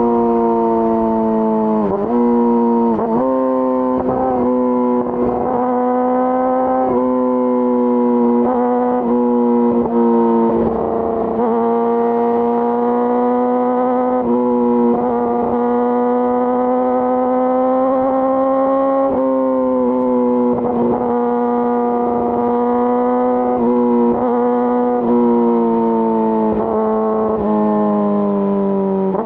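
2018 Yamaha R6's 599 cc inline-four through an Akrapovic full exhaust, held at a steady high-rpm note while riding. Its pitch dips briefly and comes straight back every few seconds.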